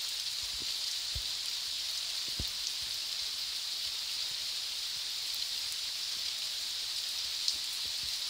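Light rain falling on a wet brick path and garden bed: a steady, even hiss with a few soft drips.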